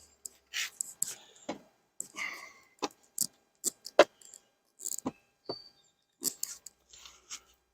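Irregular clicks, knocks and short scrapes from beehive frames and boxes being handled during a hive inspection, with no steady buzz standing out.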